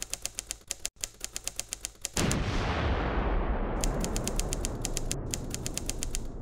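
Edited sound effect: rapid, evenly spaced clicking like a typewriter, about eight clicks a second. About two seconds in it is cut by a sudden deep boom, the loudest thing here, which fades slowly while the clicking starts again.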